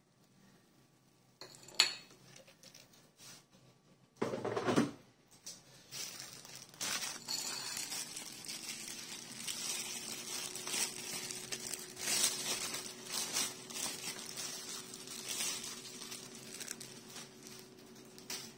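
Kitchen handling of crockery and food: a plate knocks against the counter, then a long stretch of crackling and small clicks and clinks as the food and plates are handled.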